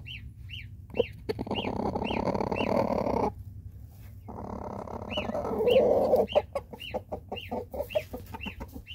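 Goslings peeping, one short rising-and-falling peep about twice a second, over a rooster's low, rough grumbling as he burrows into the hay of a nesting box. The grumbling comes in two stretches of about two seconds each.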